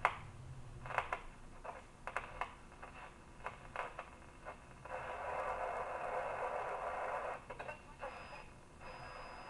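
RCA 262 tube radio's loudspeaker while the tuning dial is turned: scattered crackles and clicks of static, then a few seconds of steady hiss from about five seconds in, then more crackles.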